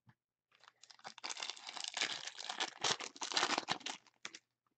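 Plastic trading card pack wrapper being crinkled and torn open by hand: a run of crackles starting about half a second in and stopping near the end.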